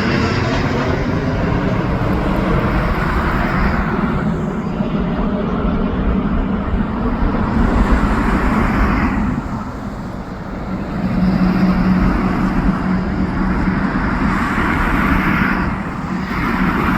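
Jet airliner's engines at takeoff thrust, a loud continuous rumble that swells and dips slightly as the Virgin Atlantic Boeing 787-9 climbs out.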